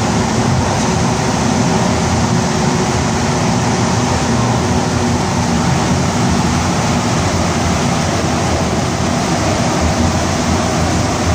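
Rubber-tyred AZUR metro train running at speed through a tunnel, heard from inside the car: a loud, even rumble and rush of tyres and air with a faint steady hum underneath.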